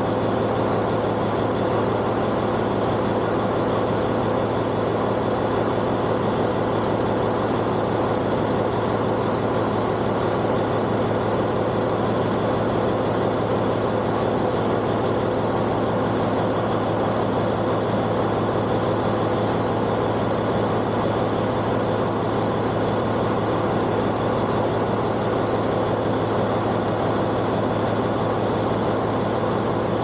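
Ship's Wärtsilä diesel engine running at a steady speed: a loud, unchanging mechanical noise over a constant low hum.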